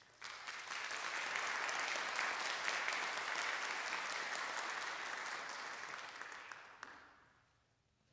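Audience applauding, a dense patter of clapping that fades out about seven seconds in.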